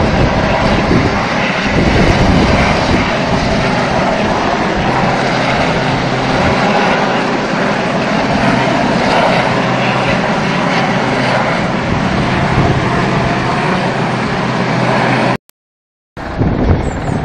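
Sea King search-and-rescue helicopter flying past, with a loud, steady rotor and turbine sound. The sound cuts out for under a second near the end.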